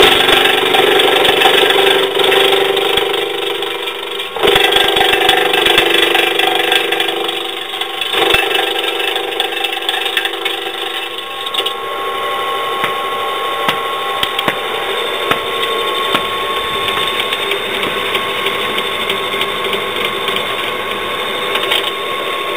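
Branch chipper running and chipping branches, louder and rougher for the first ten seconds or so with a brief dip about four seconds in, then settling to a lighter, steady running note with scattered ticks of chips.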